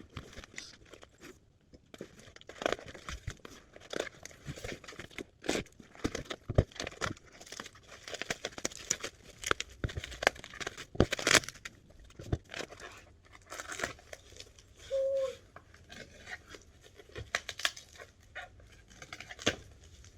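Packing paper being torn and crumpled by hand while a box is unpacked: irregular rips and crinkles throughout, with one short squeaky note about fifteen seconds in.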